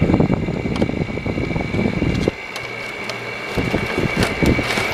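Frigidaire 5,000 BTU window air conditioner running on low cool. Its fan blows with a steady high whine, which is the noise of a bad fan motor. There are a few scattered clicks, and a low rushing sound drops away a little over two seconds in.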